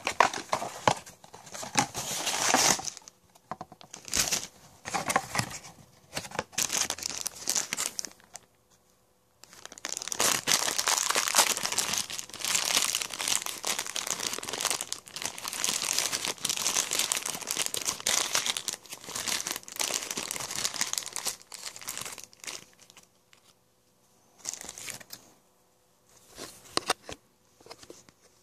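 Funko Mystery Minis blind box being opened and its foil bag crinkled and torn open. There are short bursts of crinkling at first, then a long stretch of continuous crinkling from about ten seconds in, and a few brief rustles near the end.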